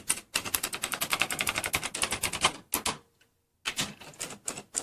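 AI-generated sound effect from AudioX: rapid typewriter-like clicking, about a dozen sharp clicks a second, in two bursts with a short pause between them.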